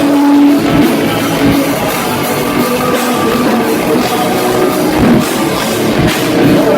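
Rock band playing loud, with electric guitar and a drum kit.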